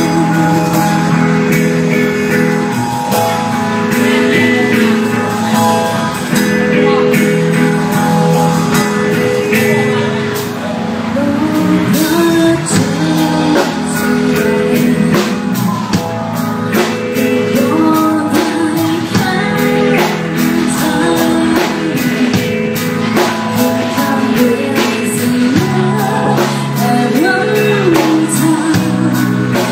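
Live rock band playing loudly: a woman singing into a microphone over electric guitars and a drum kit.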